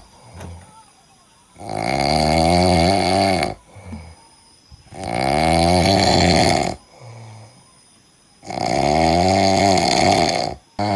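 Pet monkey snoring in its sleep: three long, loud snores of about two seconds each, with a wavering pitch, spaced about three and a half seconds apart, with faint breaths in between.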